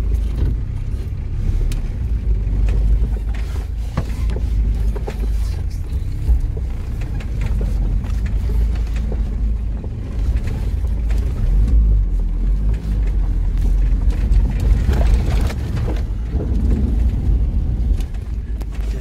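Vehicle driving over rough dirt ground, heard from inside the cabin: a steady low engine and road rumble with frequent short knocks and rattles.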